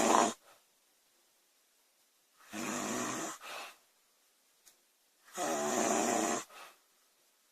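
A woman snoring loudly, about one snore every three seconds. Each snore lasts about a second and ends with a short, fainter second puff.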